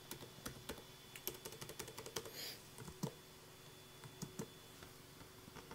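Faint typing on the Infinix InBook X2 laptop's keyboard: a quick, irregular run of key clicks about a second in, then a few single taps.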